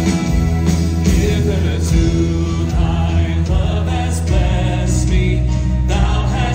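Live church worship band playing: women's voices singing into microphones over acoustic guitar and a strong, steady bass.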